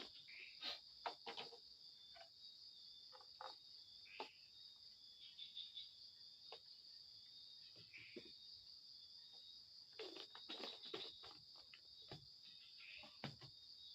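Insect chorus, most likely crickets, keeping up a steady high-pitched trill, with scattered soft clicks and knocks, a cluster of them around the ten-second mark.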